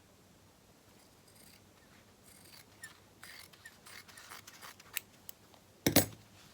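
Light scratching and rasping from hand stitching, thread and fabric being worked, then a single louder knock near the end.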